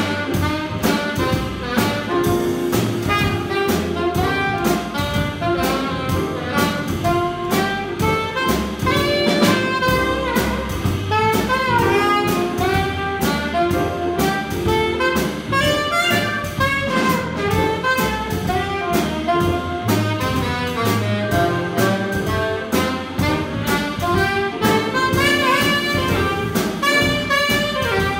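Small jazz combo playing a blues: an alto saxophone solos in a busy line of short notes over electric keyboard, upright bass and drum kit.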